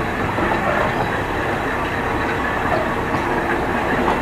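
Passenger train rolling through a rail yard, heard from an open carriage window: a steady running noise of wheels on rails.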